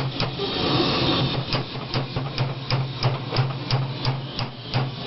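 Repeated hammer blows on metal, about three a second, over a steady low hum.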